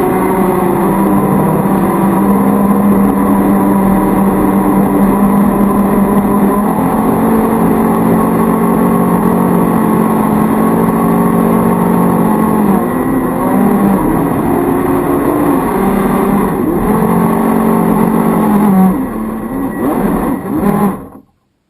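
Brushed electric motors of a converted toy RC boat whining steadily, the pitch dipping and coming back up a few times, then cutting off abruptly near the end.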